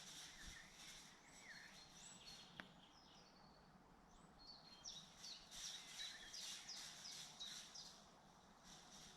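Faint woodland birdsong: small birds chirping in short, high phrases, busiest a little past the middle, with one sharp tick a few seconds in.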